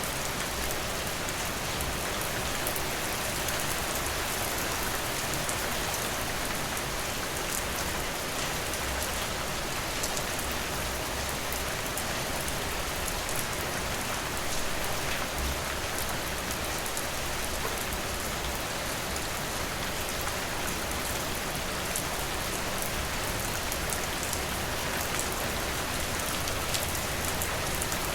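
Steady rain falling: an even hiss with the fine patter of individual drops.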